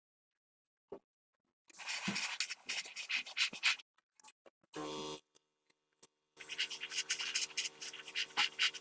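Scratchy abrasive rubbing in short runs of strokes, as of sanding or scrubbing a metal part. A steady hum cuts in briefly about halfway through and returns under the rubbing for the last few seconds.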